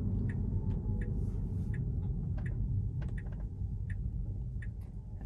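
A Tesla's turn-signal indicator clicking steadily, about one and a half ticks a second, over low road rumble inside the cabin. The rumble slowly fades as the car slows for a stop sign.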